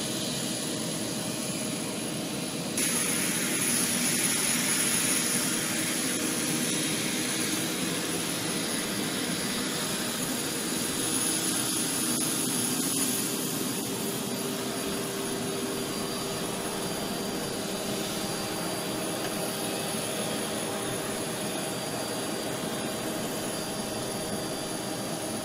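Jet aircraft engine running steadily with a high whine over a rushing hiss; the hiss grows louder about three seconds in.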